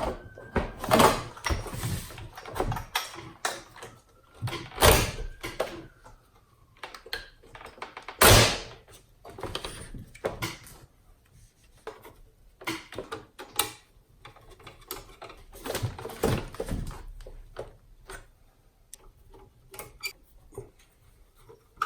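Irregular clicks and knocks of plastic and metal parts being handled and fitted together while the car's touch-screen head unit is reassembled. A faint whine rises and falls twice in the first seven seconds.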